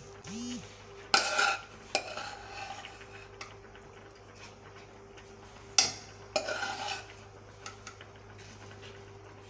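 A spoon knocking and scraping against a cooking pot as a fried onion, pepper and fish mixture is stirred into boiling sweet potatoes, with two loud knocks about a second in and near six seconds and lighter scrapes between.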